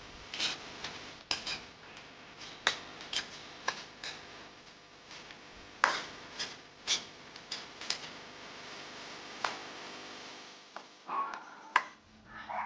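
Irregular sharp clinks and taps of a cooking utensil against cookware, about a dozen strikes, some ringing briefly, over a faint steady hiss.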